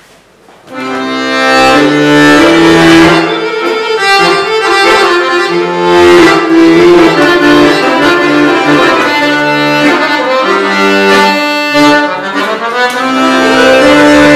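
Chromatic button accordion played solo, starting about a second in: a melody over sustained low bass notes and chords.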